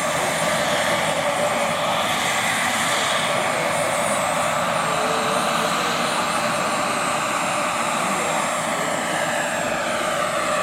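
Giant-scale radio-controlled AgustaWestland AW139 model helicopter flying past, its drive and rotor making a steady whine with several tones over a rushing hiss. Near the end the whine slides down in pitch as the model moves away.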